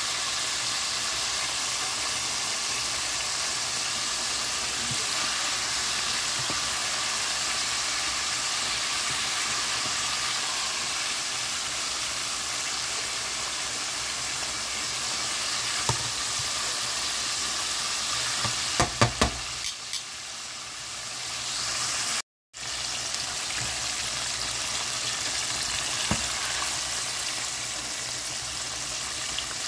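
Breaded chicken pieces deep-frying in a pot of oil, a steady sizzle. A few sharp clicks sound a little past the middle, and the sound drops out for a moment about two-thirds of the way through.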